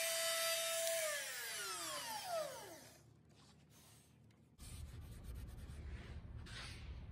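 A handheld router, switched off after a pass, its motor whine falling steadily in pitch as it spins down over about two seconds. From about four and a half seconds in, a low, steady noise follows.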